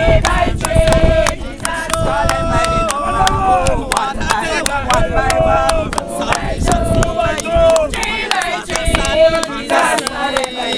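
A group of men and women singing together close to the microphone, with frequent sharp knocks throughout.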